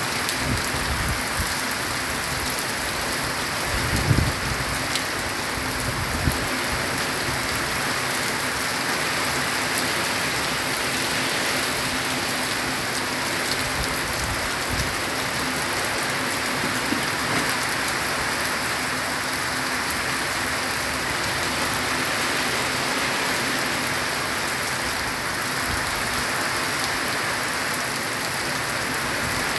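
Heavy rain falling steadily on a zinc roof, with runoff pouring off the roof edge onto the ground. A brief low thump about four seconds in, and a smaller one near six seconds.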